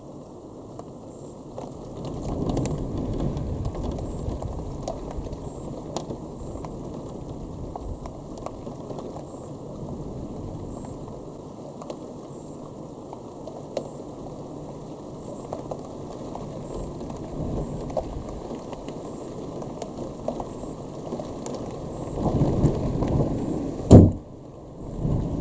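Thunder rumbling in two long rolls, one a couple of seconds in and one near the end, over a steady hiss of rain. A single sharp loud knock comes just before the end.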